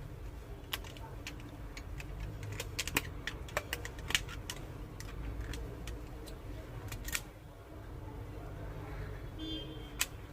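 Rubber bands being stretched around a phone to clamp its freshly glued screen: scattered light snaps and clicks, most of them in the first seven seconds and one more near the end, over a low steady hum.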